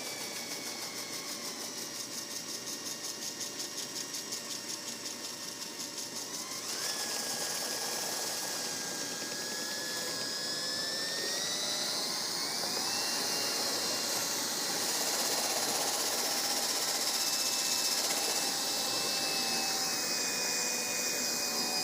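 Electric drill spinning a rotary dryer vent cleaning brush on its wand inside a clogged dryer vent duct. The motor runs continuously with a fast rhythmic flutter for about the first six seconds, then gets slightly louder and steadier, its whine rising in pitch a little before halfway.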